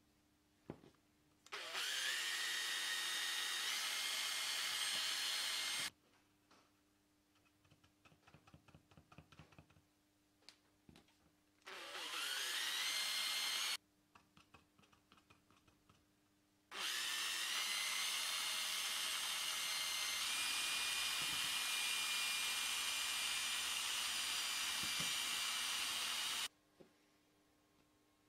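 Electric drill spinning a mixing rod through linseed oil paint in a plastic beaker, run three times: about four seconds, about two seconds, then about ten seconds. Each run starts with a rising whine and cuts off sharply, with small clicks and taps of handling in between.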